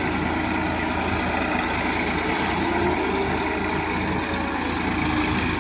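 Tractor's diesel engine running steadily at low speed while it pulls a row-crop implement.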